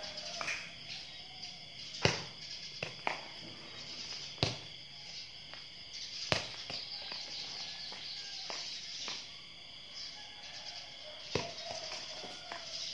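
Sharp knocks of a small ball being kicked and bouncing on a tiled yard, four loud ones spread out, the first about two seconds in the loudest, over a steady high chirring insect chorus.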